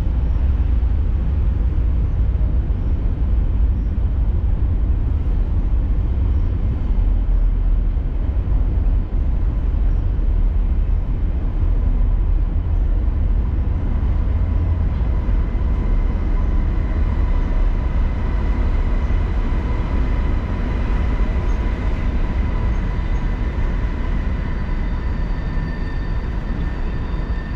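A train crossing a steel railway bridge: a heavy, steady rumble, with a high steady whine coming in about halfway through and growing louder.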